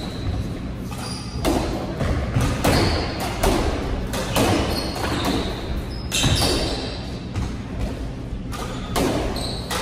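Squash ball in a doubles rally, struck by racquets and hitting the court walls and floor: sharp thwacks about once a second, irregularly spaced, ringing briefly in the court. Short high squeaks of court shoes on the wooden floor come between some of the hits.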